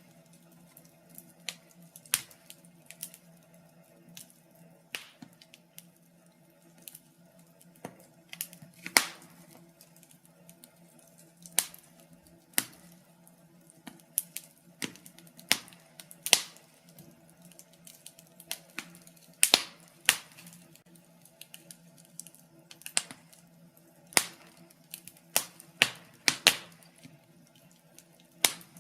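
Wood fire crackling in a fireplace: irregular sharp pops and snaps, about one a second with occasional quick clusters, over a faint steady hum.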